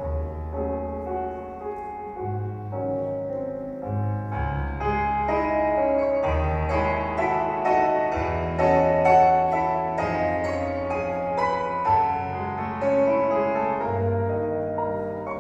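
Instrumental keyboard music in a piano tone: a melody of separate notes over long held bass notes, with no singing.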